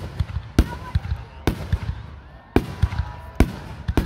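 Aerial fireworks shells bursting overhead in a rapid, irregular string of loud bangs, several a second at times.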